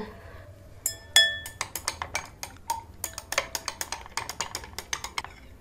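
A stirring rod clinking rapidly against the inside of a stemmed wine glass as yeast is stirred into warm water, several clinks a second; the first strikes, about a second in, leave the glass ringing briefly.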